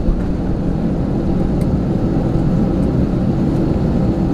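Airbus A320's jet engines running at low taxi power, heard inside the cabin as a steady low rumble with a faint hum.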